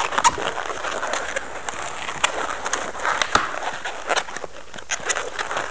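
Long latex modelling balloon being worked into loop twists by hand: a run of short rubbery squeaks and creaks as the latex rubs and twists.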